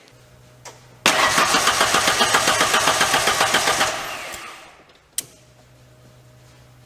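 1991 Ford Ranger's 2.3-litre four-cylinder engine being cranked by the starter, a loud even pulsing for about three seconds that then fades away without the engine staying running. A faint low hum comes before it and again near the end, after a single click.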